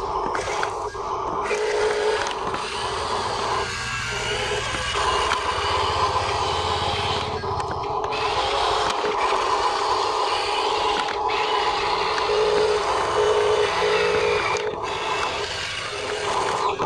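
Small electric motors and plastic gears of a Huina radio-controlled dump truck, whining steadily as the truck drives and tips its bed.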